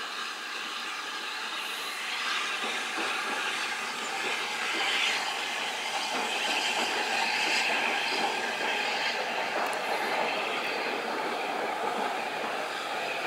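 J94 saddle-tank steam locomotive hauling coaches across a steel girder bridge: a steady rumble and rattle of the train running on the rails, swelling slightly in the middle as the locomotive and coaches pass.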